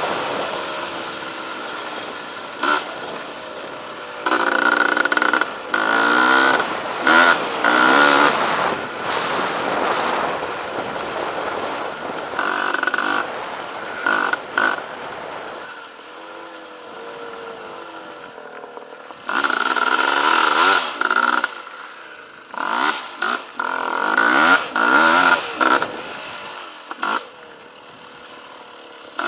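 Sport ATV engine revving hard in repeated runs as the quad accelerates, its pitch climbing with each burst of throttle and falling back between, heard from on board the machine.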